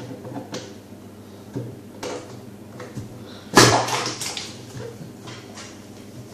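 Handling noise from the parts of a Deltec MCE300 acrylic protein skimmer being fitted together: short knocks and scrapes, with one louder clatter about three and a half seconds in.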